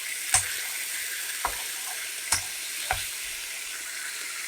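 Greens, onions, peppers and turkey salami sizzling in coconut oil as they sweat down, their moisture cooking out, with four sharp clicks over the first three seconds.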